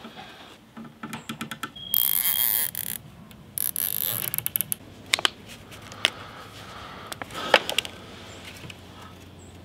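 Plastic zip ties zipping through their ratchets as they are pulled tight around a bundle of steel spear tines: two quick zips about two seconds apart, then a few sharp separate clicks.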